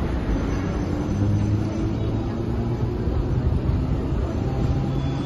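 Hong Kong double-decker tram running along its track, heard on board: a steady rumble with a low motor hum.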